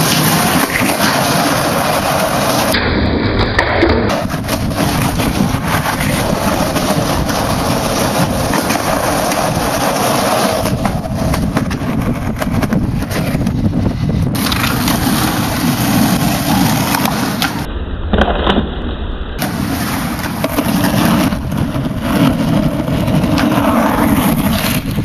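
Skateboard wheels rolling on concrete, with knocks of the board being popped and landed.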